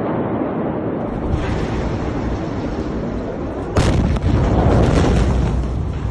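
Blast wave of the 2020 Beirut port explosion (ammonium nitrate) reaching a phone recording. After a steady low rumble, a sudden loud boom comes about four seconds in, followed by a couple of seconds of heavy rumbling with several sharper cracks.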